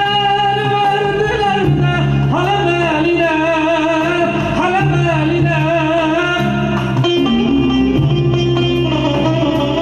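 Live Turkish Ankara havası band music: a man sings ornamented, wavering vocal lines into a microphone over a Korg electronic keyboard and a plucked long-necked saz. The voice is strongest in the middle of the stretch, while the keyboard and saz carry on underneath.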